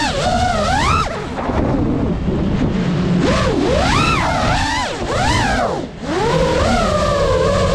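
5-inch FPV freestyle quadcopter's motors and propellers whining, the pitch swooping up and down with each throttle punch and release. It briefly drops away about a second in and again near six seconds, as the throttle is cut.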